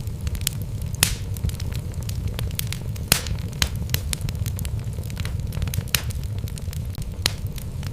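Wood fire burning in a fireplace: a steady low rumble of flames with frequent sharp crackles and pops from the logs, a few louder pops standing out.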